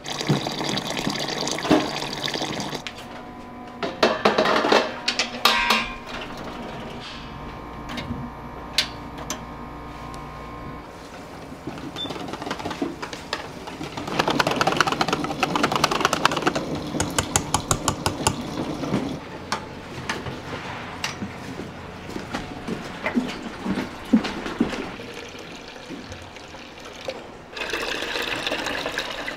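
Restaurant kitchen work: clatter of utensils, and a utensil working briskly in a metal bowl. Near the end, hot water pours steadily from a kettle spout into a plastic jug.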